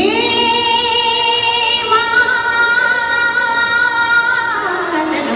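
Music from a backing track: a single sung note, slid up into at the start and held long without any beat beneath it, then gliding down and fading near the end.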